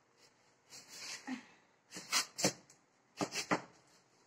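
Footsteps in chappals (flip-flop sandals): a handful of short slaps from about two seconds in, several coming in quick pairs.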